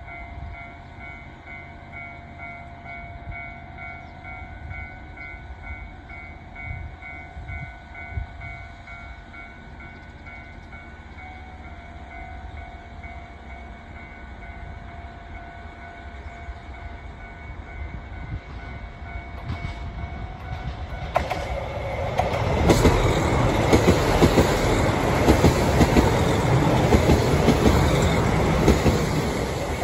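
JR Hokkaido KiHa 261 series diesel limited express drawing into the station. At first there is a faint steady whine with a low hum; about two-thirds of the way through it grows loud as the diesel cars run past close by, engines and wheels on the rails.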